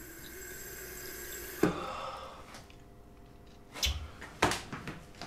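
Running bathroom tap that stops with a sharp knock about a third of the way in, followed by two sharp knocks about half a second apart near the end.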